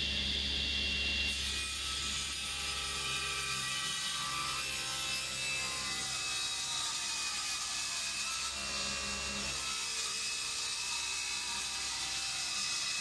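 Table saw ripping a sapele board lengthwise along the fence. The saw runs with a steady whine, and the cutting noise comes in about a second in as the blade enters the wood, then carries on through the long cut.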